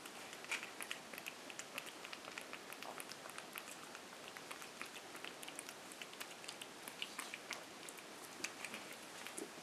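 Shih-tzu puppy eating moistened kibble from a bowl: a faint, irregular run of small wet chewing clicks and smacks.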